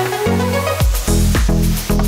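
Electronic dance music with a steady kick-drum beat, about two beats a second, over a bass line.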